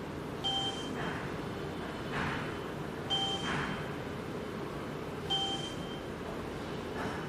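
Short electronic beeps from the SEC-E9 key machine's touchscreen as its buttons are pressed. There are three beeps about two to three seconds apart, over a low steady hum.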